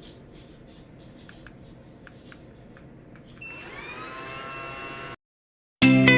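Golongele HB-1002 robot vacuum starting up: a few faint ticks, a short electronic beep, then its suction motor spins up with a rising whine and runs steadily. It cuts off abruptly, and loud guitar music starts near the end.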